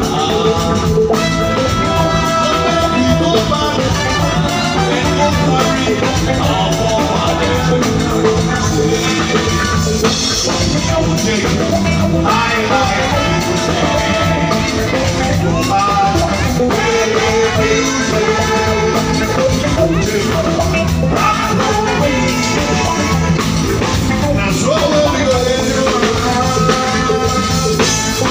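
Live reggae band playing at a steady groove: drum kit, electric guitar and brass under a male lead singer with a backing vocalist.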